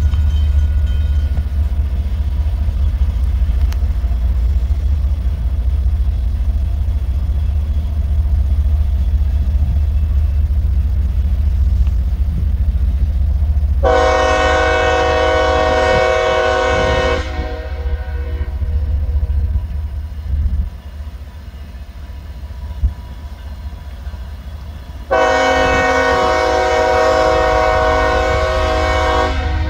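Locomotive air horn of an approaching CSX freight train sounding two long blasts, each a chord of several tones. The first comes about 14 seconds in and lasts about three seconds; the second starts near the end and is still sounding. A steady low rumble runs underneath.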